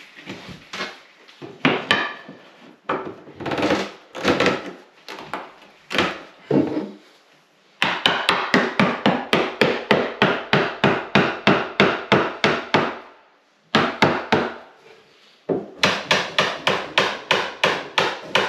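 Hand file stroking the wooden edge of a vanity cabinet's face frame. Slow, uneven strokes at first, then quick rhythmic strokes, about four a second, in runs of several seconds with short breaks.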